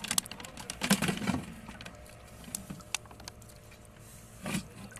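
Light clicks and knocks of a rod rattling against a floating plastic jerrycan as a moray eel is pushed into it through a cut flap: a cluster in the first second and a half, then another knock about four and a half seconds in.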